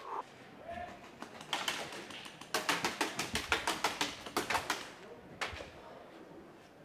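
Airsoft gunfire in rapid strings of sharp clicks and taps: airsoft guns shooting and BBs striking wooden plank walls. A short burst comes about a second and a half in, then a longer fast run of several clicks a second for about two seconds, and a last click near the end.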